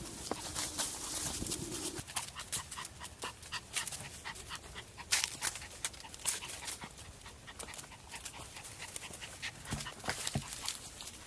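A small Maltese dog panting, with many short irregular clicks and crackles over it.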